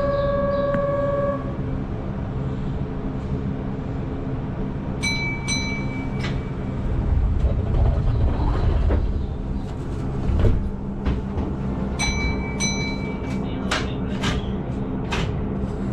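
Keihan 8000 series electric train running, heard from inside the front car: a steady motor hum over low running rumble that swells in the middle. There are two pairs of short high beeps, about seven seconds apart, and a quick series of sharp wheel clicks near the end.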